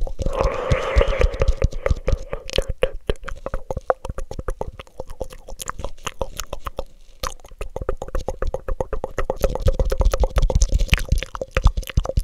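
Wet mouth sounds, rapid tongue and lip clicks and smacks, made into a black cone held over the microphone. There is a brief breathy rush just after the start, and the clicking grows softer and sparser in the middle before picking up again.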